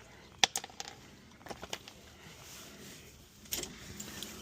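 A few sharp metallic clicks and clinks of tools and suspension parts being handled, spaced out over a few seconds, with no power tool running.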